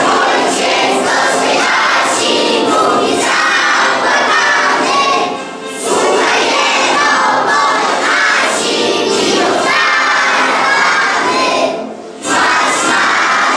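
A large children's choir singing loudly in unison, with short breaks between phrases about five seconds in and again near the end.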